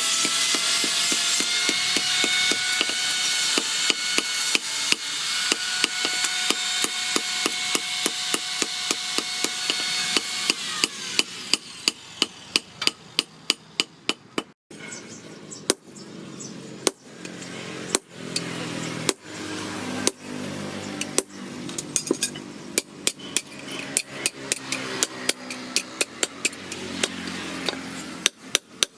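Hammer blows on steel being forged into a knife blade, quick and regular, with a ringing metallic tone under the strikes in the first half. The sound breaks off briefly about halfway and the hammering goes on.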